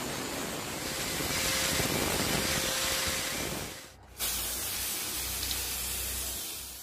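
Abrasive grinding wheel running against the steel blade of a billhook, a steady hiss as sparks fly. About four seconds in it cuts off, and a second steady hiss with a low hum follows: paint being sprayed onto the blade.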